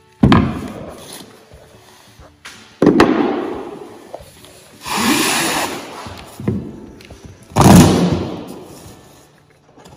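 Cardboard boxes being set down and handled on a plywood workbench: three loud thumps, each dying away over a second or so, with a rasping scrape about five seconds in.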